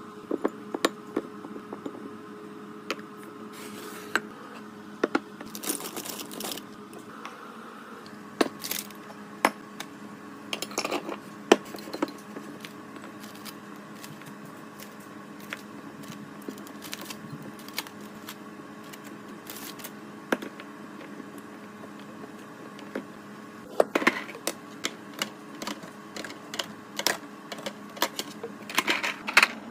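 Containers and groceries being set into a refrigerator: many sharp clicks, taps and clatters of plastic and glass items, in bunches, over a steady hum.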